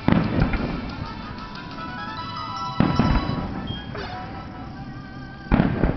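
Aerial fireworks shells bursting: three booms about 2.8 seconds apart, each with a trailing rumble, over music playing.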